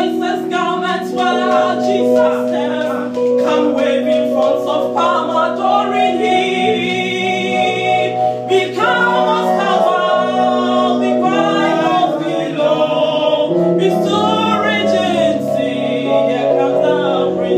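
A woman singing a gospel worship song into a handheld microphone, over held backing chords.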